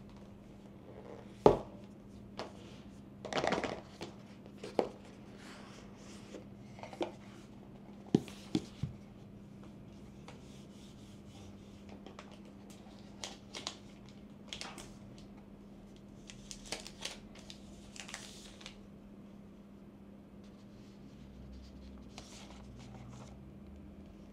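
Hands unboxing a smartphone: scattered taps and knocks of the cardboard box, lid and tray, with rustling and rubbing of the plastic sleeve as the phone is slid out of it. The loudest is a sharp knock about a second and a half in; a faint steady hum runs underneath.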